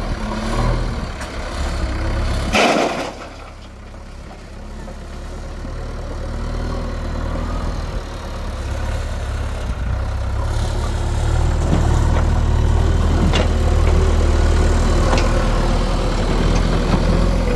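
Heavy diesel engine of earthmoving machinery running. A short burst of noise comes a little under three seconds in, then the engine sound drops and grows steadily louder over the next several seconds before holding steady.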